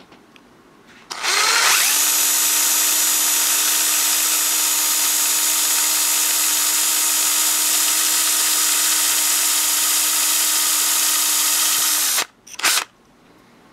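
Power drill running a small twist bit through a metal bottle cap: the motor spins up with a rising whine about a second in, holds a steady pitch for about ten seconds, then stops suddenly, followed by one brief second burst.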